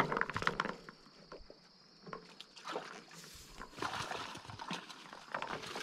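Rustling, crackling and light splashing among floating water hyacinth and wet vegetation, with many quick clicks in the first second, over a faint steady high insect hum.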